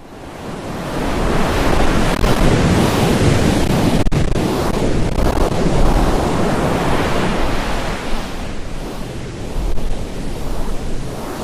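A loud, even rushing noise, like surf or wind, that swells in over the first couple of seconds and then holds with slow surges.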